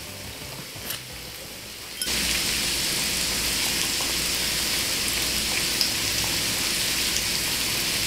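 Thin-sliced pork belly and mushrooms sizzling in a small hot pan, a steady rain-like hiss. About two seconds in, the sizzle jumps suddenly much louder and stays that way.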